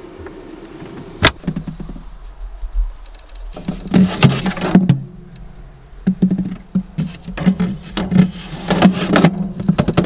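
A sharp click about a second in, then background music with a regular beat comes in about three and a half seconds in.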